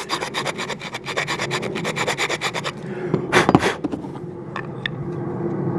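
Hand rasp cutting the end grain of a wooden AK buttstock's tang in quick short strokes, several a second, shaping the angled undercut that fits it to the rear trunnion. The rasping stops about two and a half seconds in, followed by a sharp knock and a few light clicks as the stock is handled.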